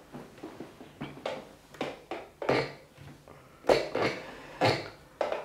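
Irregular light knocks and rustles of hands handling the candy floss maker's power cable and plug while it is being plugged in.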